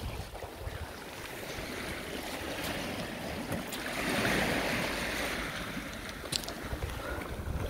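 Small waves washing up over a sand-and-pebble shore, the wash swelling about halfway through and easing off again, with a couple of short clicks near the end.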